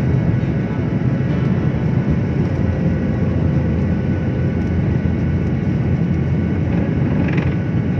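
Jet airliner's engines at takeoff thrust, heard from inside the cabin over the wing during the takeoff roll: a loud, steady low rumble with faint steady whining tones above it.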